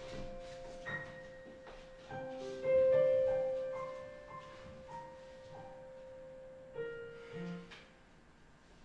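Slow piano music: single held notes ringing out one after another, fading away near the end.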